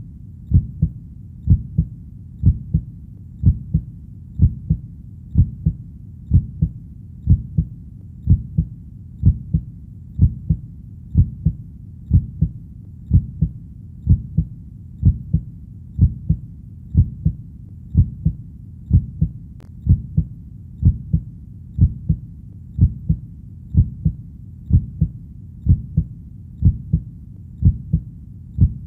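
Heartbeat, each beat a low double thump, lub-dub, repeating evenly at about one beat a second.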